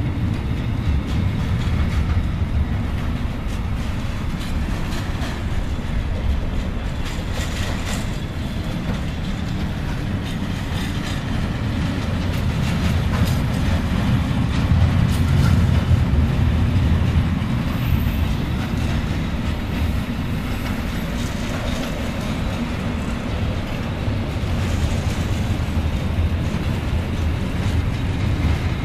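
Freight train of container wagons rolling past close by: a steady rumble of wagons and wheels on the rails, with scattered wheel clicks and clatter, a little louder about halfway through.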